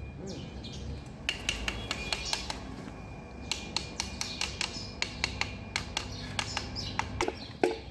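Metal tools clicking and clinking: a run of irregular sharp taps that starts about a second in, over a low steady hum.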